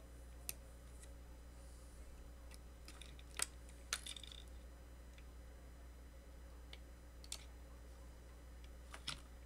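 Scattered small clicks and taps of fingers handling a small brushed drone motor's metal parts, about six in all, the loudest about three and a half and four seconds in, over a steady low hum.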